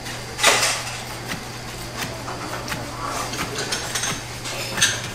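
Restaurant kitchen clatter: dishes and utensils knocking and clinking at irregular moments, with a loud clank about half a second in and another near the end, over a steady low hum.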